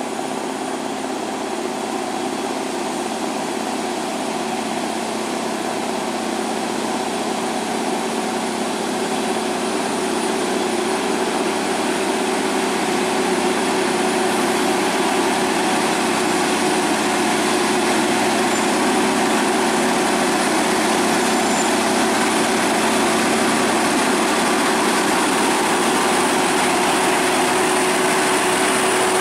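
Scania R580 truck's V8 diesel engine pulling a lowboy trailer loaded with an excavator at crawling speed, running steadily and growing gradually louder as the truck approaches.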